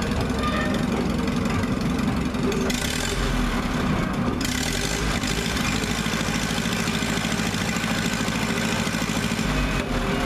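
Minneapolis-Moline R tractor's four-cylinder engine running slowly and steadily while the tractor is edged onto a trailer. A short rush of hissing noise comes in about three seconds in.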